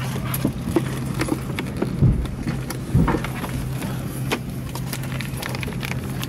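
Steady low hum in an Airbus A320 cabin, with clicks and knocks from the plastic seat-back tray table and seat pocket being handled. Two heavier thumps come about two and three seconds in.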